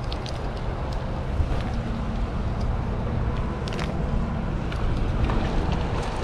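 Steady low rumble of wind buffeting the microphone over flowing river water, with a few faint ticks.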